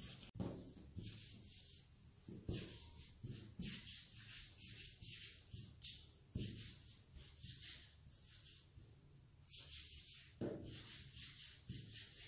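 Hands rolling a thin rope of pasta matta dough back and forth on a floured stainless steel worktop: faint, repeated soft swishing strokes.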